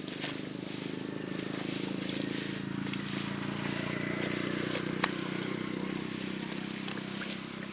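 A small engine running steadily at an even speed, with a few sharp clicks.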